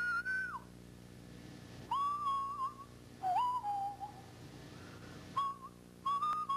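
A person whistling a tune in short phrases with brief pauses between them, the pitch sliding and wavering, over a steady low hum.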